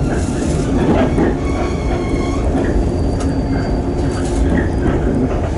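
Shinano Railway electric train heard from inside the carriage: a steady rumble of wheels on rails with scattered clacks. A thin high whine rises over it for about a second midway.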